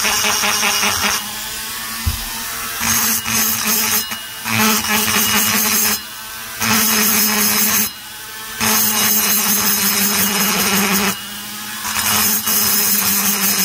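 High-speed rotary tool running a small burr into the aluminium intake port of an Echo CS-670 chainsaw cylinder, porting it by grinding out a corner and roughing up the casting. The motor's hum is steady, and the rasping cut comes and goes in about six bursts as the burr is pressed in and eased off.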